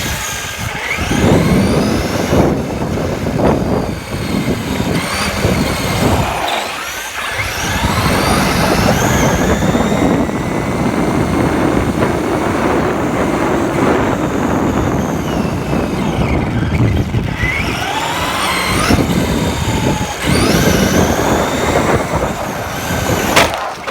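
Traxxas RC car driving hard, heard from a phone mounted on the car: the electric motor whines up and down in pitch as the throttle changes, over a constant rush of tyre and ground noise. There is a sharp knock near the end.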